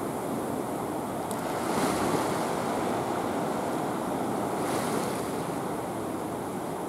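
Sea water washing and lapping below a harbour breakwater, with wind buffeting the microphone; a steady wash that swells briefly about two seconds in and again about five seconds in.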